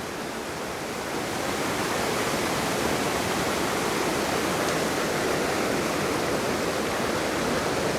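Waterfall rushing steadily up close: a loud, even wash of falling water with no break.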